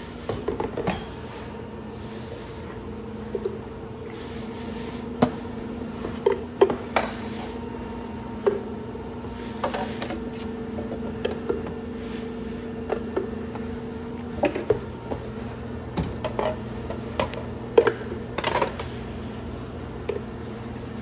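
Clinks, clatter and knocks of stainless steel prep-table lids, scoops and tongs as fruit is picked up and dropped into a plastic blender jar, irregular and scattered throughout, over a steady low hum.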